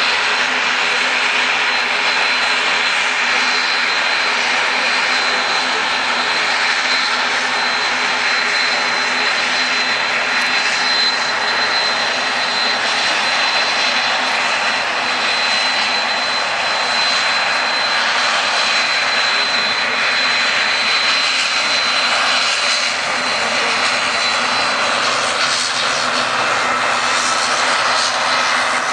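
Boeing 737-800's twin CFM56-7B turbofan engines at takeoff thrust: a loud, steady jet roar with a thin high whine over it, the whine fading out near the end.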